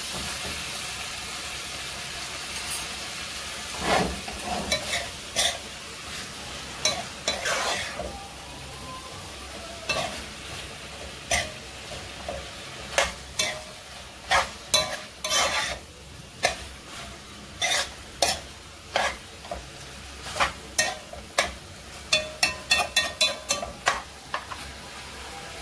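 Metal spoon stirring and scraping chopped food in a heavy black pot, knocking against the pot again and again over a steady frying sizzle. Near the end the knocks come in a quick run of taps, several a second.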